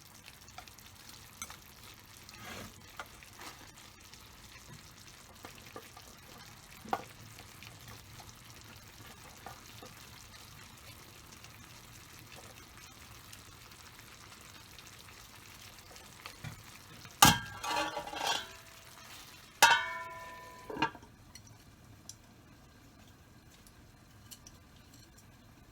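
Chicken teriyaki cooking in a frying pan: a faint steady sizzle with small ticks and scrapes of a utensil. About two-thirds of the way in come two loud clatters of cookware, the second with a clear ringing clink.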